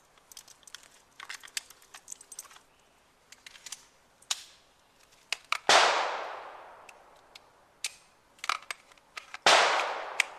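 Two loud pistol shots about four seconds apart, one near the middle and one near the end, each trailing off in a long echo. Fainter sharp clicks and clacks are scattered between them.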